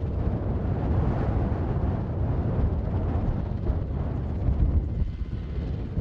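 CH-148 Cyclone military helicopter taxiing with its main rotor turning and twin turboshaft engines running: a steady, dense, pulsing low rumble.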